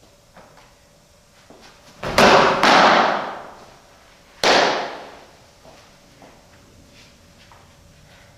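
Three loud smacks of a pitched softball striking indoors, each ringing out in the room's echo: two about half a second apart around two seconds in, and a third about two seconds later.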